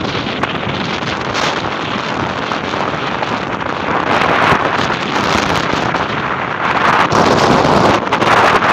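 Strong storm wind buffeting the microphone over a steady rush of surf, gusting louder near the end.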